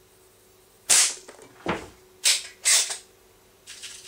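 Spring-piston .177 air pistol (Baikal IZH MP-53M, spring freshly bevelled and moly-greased) firing once about a second in, a sharp crack followed by a duller thud. Two more sharp metallic clacks follow, then a run of light clicks near the end.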